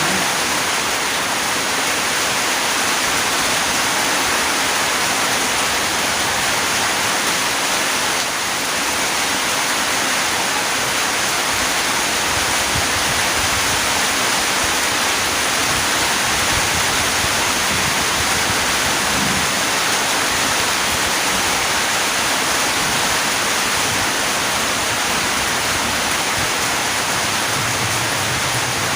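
Rain falling steadily, a dense and even hiss of water without breaks.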